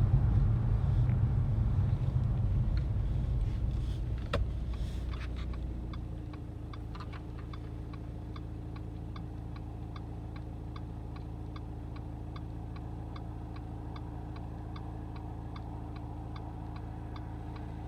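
Car running, its road and engine noise dying away over the first few seconds as it comes to a stop, then idling steadily. A regular ticking about twice a second sounds over the idle.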